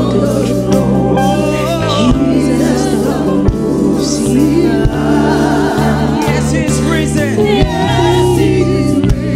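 Gospel worship song: several voices singing together over a band, with a bass line moving in held notes.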